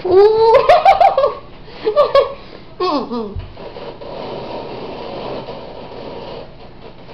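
A person laughing with a mouth full of marshmallows: high, bending laughs in several bursts over the first three seconds, the last one falling away, then a few seconds of quieter muffled sound.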